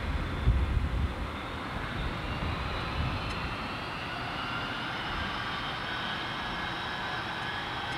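Boeing 707-138B's Pratt & Whitney JT3D turbofan engines running as the jetliner rolls out along the runway after landing: a steady jet rush with a low rumble that is strongest in the first second, and a thin engine whine that climbs slightly in pitch over the last few seconds.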